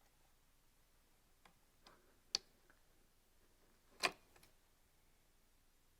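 Faint, scattered clicks and taps of small hardware being handled while a screw and washer are lined up with a metal mounting bracket. Two sharper clicks stand out, a little over two seconds in and about four seconds in.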